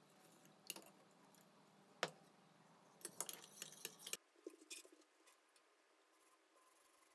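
A metal spoon clinking against a stainless-steel pot while stirring warm animal glue: a few single taps, then a quick flurry of clinks about three seconds in. After that only faint room tone with a couple of soft ticks.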